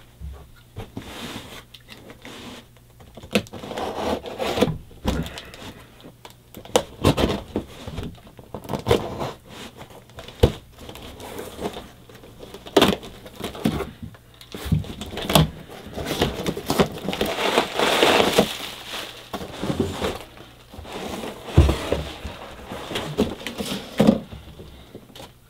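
Cardboard shipping box being cut open with a blade and pulled apart: tape and cardboard scraping and tearing, with irregular knocks from handling the box. Near the end the box is drawn off a plastic bat tube.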